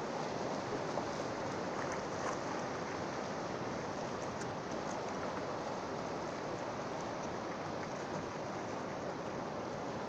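Steady hiss of sea surf and washing water at the shore, with a few faint clicks.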